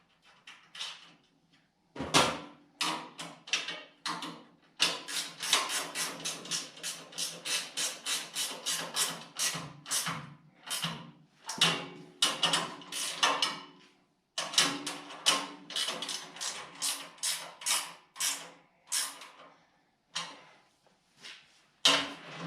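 Ratchet wrench clicking in quick repeated strokes while a nut is run down onto a carriage bolt, in two long runs with a short pause between them.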